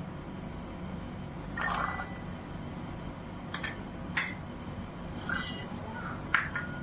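Kitchen utensils and dishes clinking: several light, separate knocks, some ringing briefly, the sharpest near the end, over a low steady hum.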